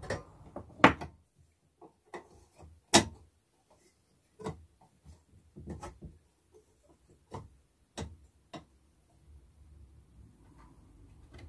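Scattered clicks and knocks of small metal parts and hand tools being handled as the stand is fitted back onto a vintage Tri-ang child's scooter frame at a wooden bench. Two sharper knocks about a second and three seconds in stand out, followed by lighter irregular clinks.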